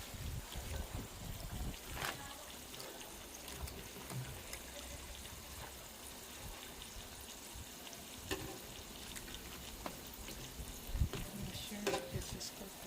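Dried fish frying in hot oil in an electric pan: a steady sizzle with scattered crackles and pops, and a few louder knocks.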